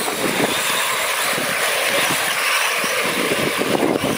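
Scale radio-controlled truck driving through a mud pit, its motor running steadily as its tyres churn through mud and water.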